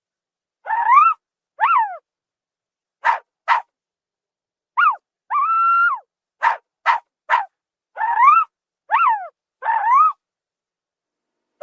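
Zebra calling: a string of about a dozen short, bark-like calls, most rising then falling in pitch, separated by silent gaps. A few calls are very brief and a couple are held a little longer.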